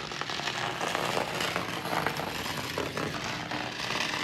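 Home-made magnet-and-battery electric train running through a long coil of bare copper wire: a steady, fine crackling rattle.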